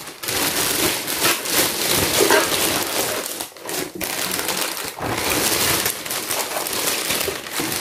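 Clear plastic bag crinkling and rustling as a plastic toy house is worked out of it, with a couple of brief pauses partway through.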